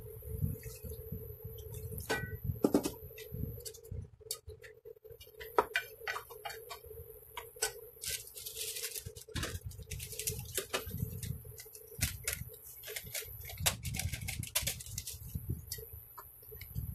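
Meat sizzling and bubbling in a pot, with irregular crackling pops. A silicone spatula stirs and scrapes it in the second half, over a steady hum.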